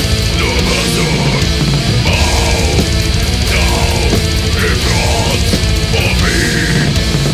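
Death metal music, loud and dense, with heavily distorted electric guitars and drums.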